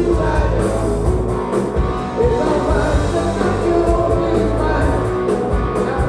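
Rock band playing live, with a man singing lead over guitars.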